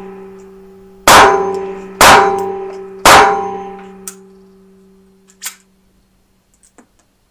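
Three shots from an ISSC M22 .22LR pistol with a compensator, fired about a second apart, each followed by a ringing tail that fades over a couple of seconds. A few quieter clicks come after.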